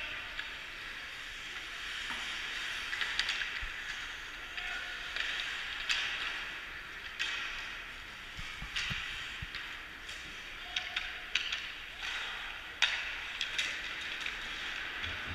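Ice hockey play in a rink: a steady hiss of skate blades scraping across the ice, broken several times by sharp clacks of sticks and puck, with a few dull thuds about two-thirds of the way through.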